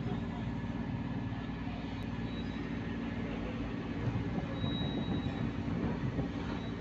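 Cargo boat's engine running with a steady low drone while the boat manoeuvres.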